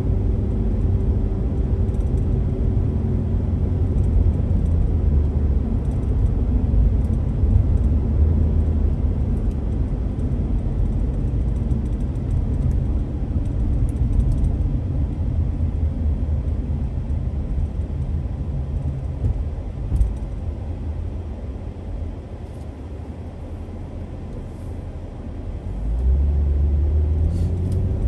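Car driving on a city boulevard: a steady low rumble of tyres and engine on the road. The rumble drops for a few seconds about three-quarters of the way through, then swells again near the end.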